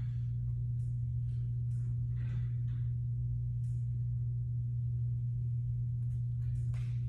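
A steady low hum that holds unchanged, with faint brief rustling sounds every second or so.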